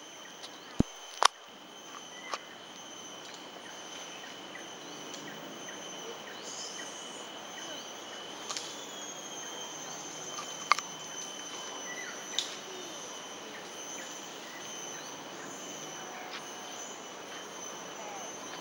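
Insects trilling steadily in the trees, a constant high drone, with a few sharp clicks breaking through, the loudest about a second in and again about eleven seconds in.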